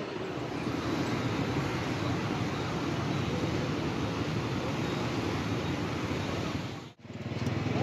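Steady city street traffic, mostly motorbikes and scooters with some cars, a continuous hum of engines and tyres. It breaks off abruptly for a moment near the end.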